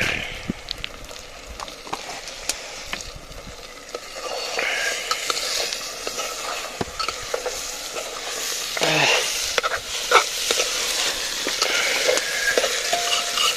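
Food frying and sizzling in hot oil in a pressure cooker pan, stirred with a spoon that scrapes and clicks against the metal. The sizzle grows louder about four seconds in.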